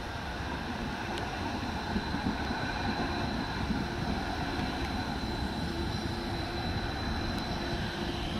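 Tyne and Wear Metro electric train passing close by: a steady rumble of wheels on the rails with a high steady whine.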